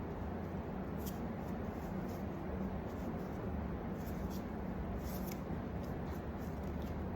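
Steady low hum and hiss of room and microphone noise, with a few faint, light rustles or ticks.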